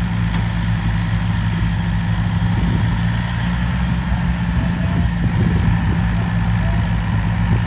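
Tractor's diesel engine running steadily and loud, with a low, even hum.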